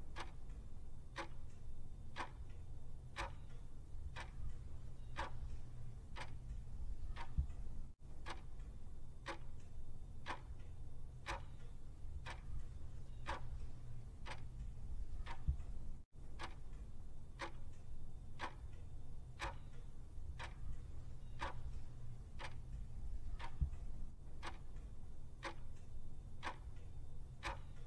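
Clock-ticking countdown sound effect: steady, even ticks about three every two seconds, over a faint low hum.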